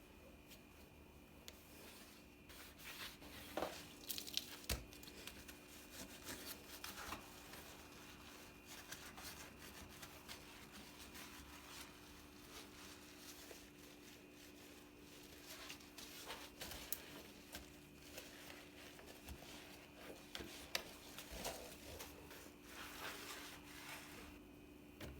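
Quiet handling sounds: scattered rustling, crinkling and tearing with small clicks and knocks, busiest a few seconds in and again in the second half, over a faint steady hum.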